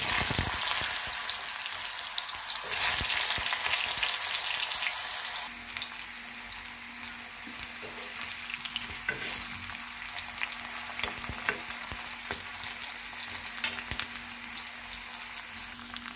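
Potato cubes hitting hot oil in a kadai and frying: a sudden loud sizzle that settles to a steadier, quieter sizzle after about five seconds, with light clicks and scrapes of a metal slotted spoon stirring them. They are being shallow-fried in a little oil until half-cooked.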